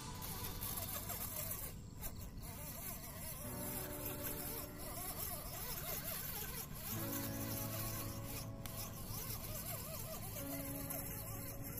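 Small brushed 390 electric motor and gearbox of an RC crawler whining, rising and falling in pitch as the throttle varies while it creeps over dirt. Soft background music with slow chord changes.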